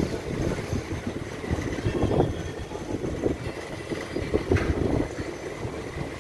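Passenger train running, heard from on board: a steady rumble of the coaches with irregular clatter and knocks of the wheels on the rails.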